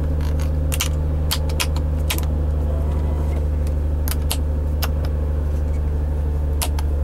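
1992 Acura Legend's V6 idling steadily, heard from inside the cabin, with a string of sharp clicks from the climate-control knob and buttons being turned and pressed.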